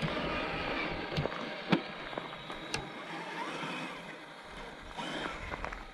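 Rustling through grass and brush with a few sharp clicks, the loudest about two seconds in.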